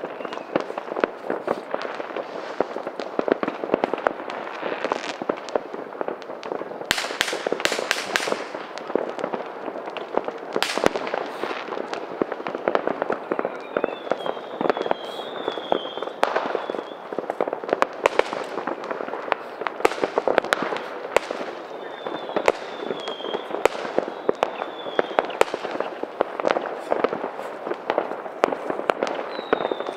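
New Year's Eve fireworks: a dense, unbroken barrage of bangs and crackling firecrackers going off all around. Several short high whistles fall in pitch about halfway through, again later, and near the end.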